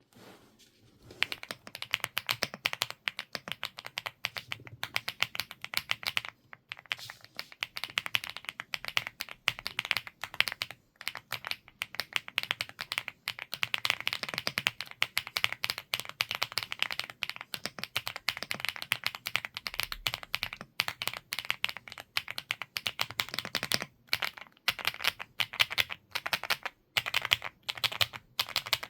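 WAVE75 mechanical keyboard with stock Green Bamboo switches being typed on in fast, continuous runs of keystrokes, with a few short pauses. The keystrokes are crisp, centred in the middle range.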